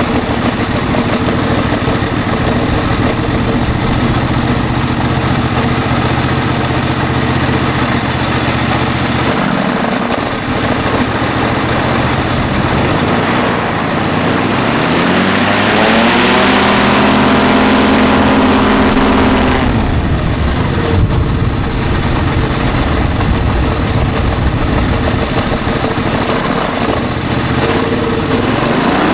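Kohler 725 cc V-twin four-stroke engine turning a propeller through a chain reduction drive, running steadily at moderate speed. About halfway through it revs up and holds high for a few seconds, then throttles back, and it starts to rise again at the very end.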